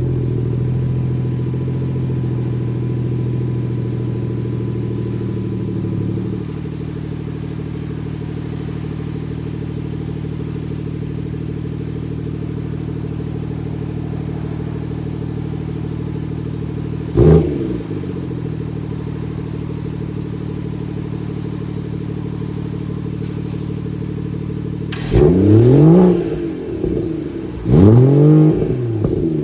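BMW 340i (F30 LCI) 3.0-litre turbocharged inline-six heard at the tailpipe through its factory exhaust, idling and settling slightly lower about six seconds in. A short throttle blip just past halfway, then two longer revs near the end, each rising and falling back to idle.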